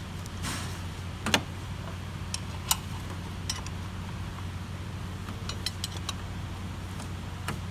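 Hand tools working on a bolt: a socket and wrench clicking and clinking as they are seated on the 17 mm engine-mount bolt. There are a dozen or so sharp metal clicks, loudest about a second in and again near three seconds, over a steady low hum.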